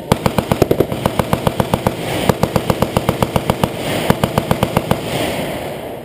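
Machine gun firing on full automatic: long strings of rapid, evenly spaced shots, about ten a second, with brief breaks between strings, stopping about five seconds in.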